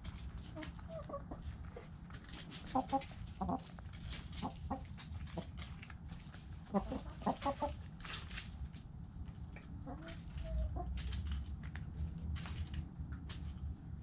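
Backyard hens clucking, with two quick runs of clucks about three and seven seconds in and scattered single clucks between, over a steady low rumble.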